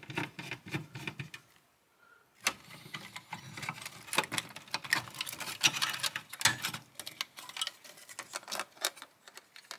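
Hands working a circuit board out of an opened Betamax VCR: irregular clicks, taps and rattles of the board, its plug-in connectors and wiring against the metal chassis. There is a short pause about a second and a half in.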